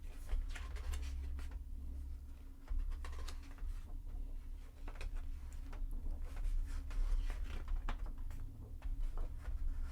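Pages of a large photobook being turned and handled: scattered soft paper swishes and taps over low handling rumble.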